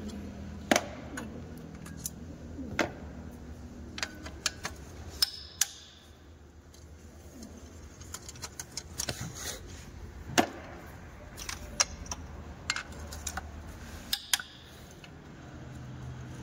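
Scattered sharp metallic clinks and clicks, some in quick little clusters, as a socket wrench on an extension works the bolts of an engine valve cover, over a steady low hum.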